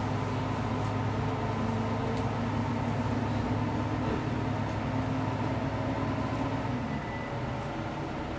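Diesel railcar engine running under power as the train pulls away from a station, heard from inside the car, a steady low hum with a drone over it. About seven seconds in the note changes and the sound gets a little quieter.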